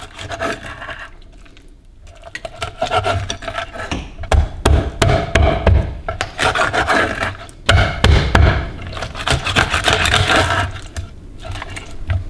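Large kitchen knife sawing and cutting through raw rabbit meat on a wooden cutting board: rasping strokes and repeated knocks of the blade on the wood. There is a short lull about a second in.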